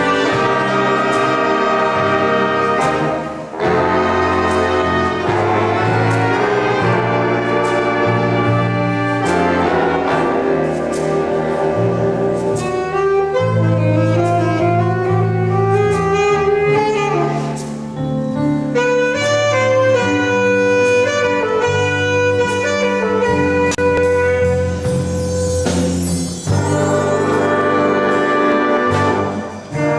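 Live big-band jazz: a school jazz ensemble's saxophones and brass playing together over bass and drums, with a rising line in the middle and a long held note in the second half.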